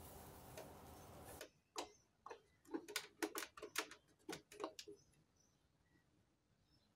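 Steady faint hiss that stops suddenly about a second and a half in. Then about a dozen light plastic clicks over three seconds as the handwheel of a Singer Heavy Duty 4432 sewing machine is twisted and pulled off its shaft.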